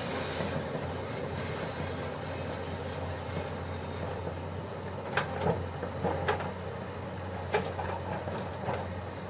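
Hyundai R210LC-7 crawler excavator running steadily with a low diesel hum, and a handful of sharp, irregular metallic clanks in the second half.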